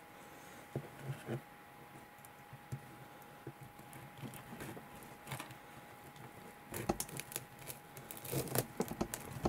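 Kitchen knife slicing a Chicken McNugget lengthwise on a cutting board: faint crunching of the fried coating and light knocks of the blade and fingers on the board, more frequent and louder for the last two or three seconds.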